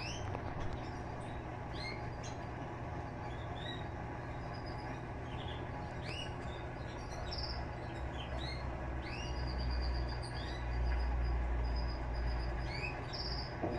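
Electrolux LTE12 top-loading washing machine running with its agitator turning, a steady low hum that swells in a low rumble about two-thirds of the way through. Birds chirp throughout, in many short rising calls.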